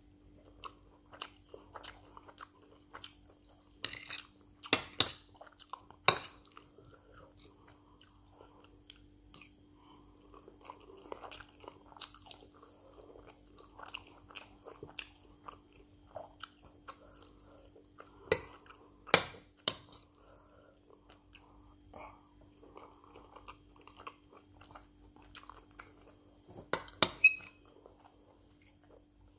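Close-up chewing of a mouthful of white rice and stew: soft, wet mouth and lip sounds. A metal spoon clicks and scrapes against the plate a few times, with one short metallic ring near the end.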